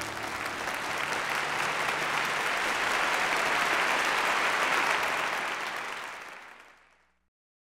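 Audience applauding steadily, dying away about a second before the end.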